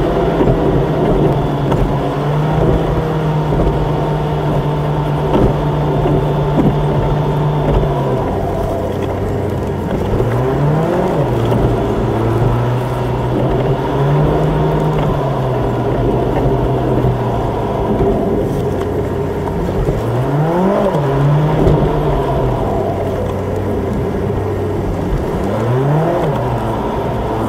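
Car engine and road noise heard inside the cabin while driving. The engine note drops in pitch about a third of the way in, and later rises and falls briefly three times.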